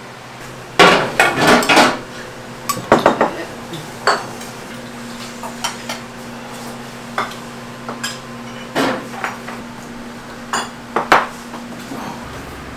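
Restaurant kitchen clatter of ceramic soup bowls, a metal ladle, pot lids and spoons: a dense run of knocks and clinks about a second in, a few more soon after, then scattered single clinks over a steady low hum.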